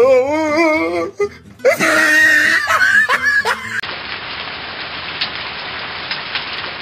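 A man's wavering, sing-song voice, then loud laughter. About four seconds in there is a cut, and the rest is a steady, even hiss with a few faint ticks.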